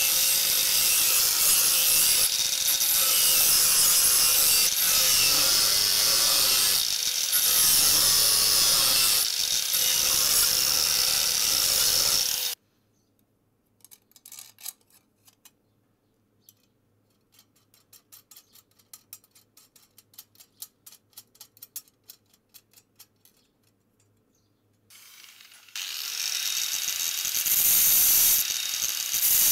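INGCO angle grinder with a cutoff disc cutting through a steel circular saw blade, its motor tone sagging briefly a few times under load. About twelve seconds in the grinding stops abruptly, leaving faint rapid clicking at about four a second as a bolt is fitted through the blade, and the grinder starts up again near the end and cuts on.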